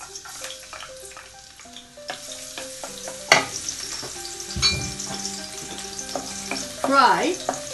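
Chopped garlic sizzling as it fries in hot oil in a stainless steel pan, stirred with a wooden spoon. A single sharp knock about three seconds in.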